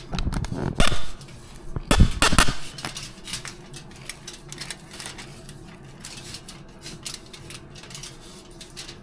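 Kitchen handling noise: utensils and dishes clinking and knocking, with two louder bursts in the first three seconds, then lighter scattered clicks.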